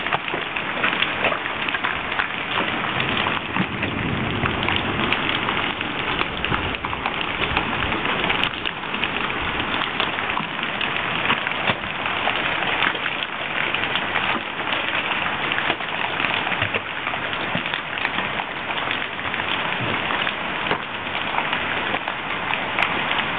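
Hail and rain coming down together in a hailstorm: a steady, dense patter of countless small impacts on the ground and nearby surfaces, with no let-up.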